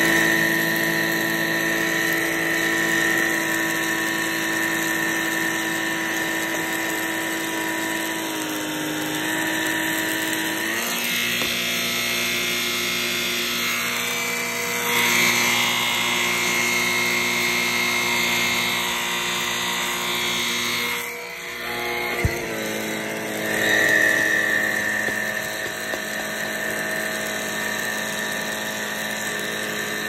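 Cordless stick vacuum running over carpet: a steady motor whine with several tones that steps in pitch a few times as the powered floor head is pushed along. About two-thirds of the way through the sound briefly drops, with a single click, before it comes back.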